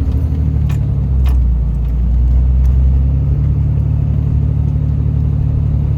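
Cummins diesel pickup engine running under load while towing a trailer, a steady low drone. Its pitch steps down about a second in and it swells slightly around two to three seconds, then holds steady.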